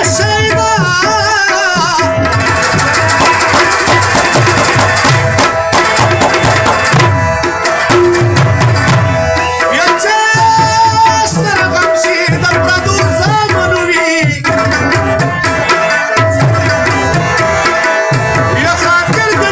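Pashto folk music played live: a rubab plucked in quick runs of notes over a steady tabla beat, with one note ringing on underneath as a drone.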